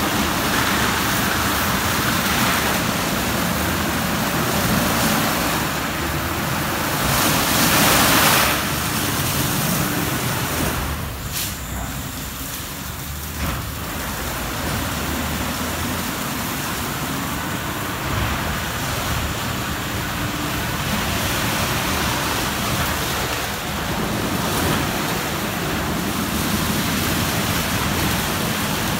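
Christ Genius Vitesse rollover car wash at work: its rotating brushes scrub a car under running water as the gantry travels along it, a steady rushing noise. It swells briefly about a quarter of the way in and eases for a few seconds near the middle, with a couple of clicks.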